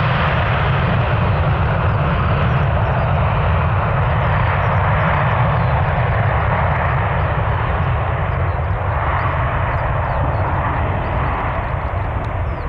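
Airbus A330-200's twin Rolls-Royce Trent 700 turbofans at takeoff thrust during the takeoff roll: a loud, steady jet engine noise with a heavy low rumble. It eases off slightly near the end.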